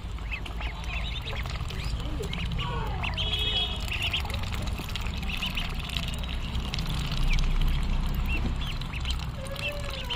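A flock of ducklings peeping, many short high calls overlapping without pause, over a steady low background rumble.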